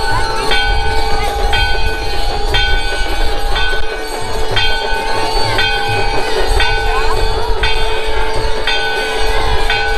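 Temple aarti instruments: a steady horn-like tone held unbroken, a bell struck about once a second, and low drumming underneath.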